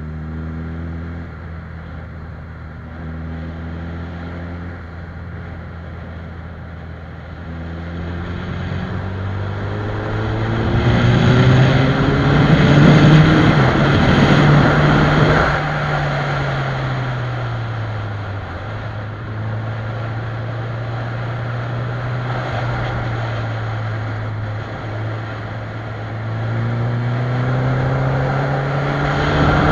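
Suzuki Hayabusa's inline-four engine running at highway speed, with wind noise. The engine note climbs in pitch and grows louder about a third of the way in, drops back around the middle, holds steady, then climbs again near the end.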